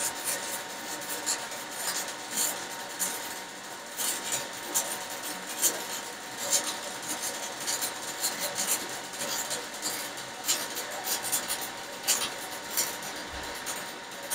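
Stick-welding arc from a 3.2 mm E6013 rod at 130 A laying a bead on rusty steel pipe: a steady hiss broken by many irregular sharp crackles and pops.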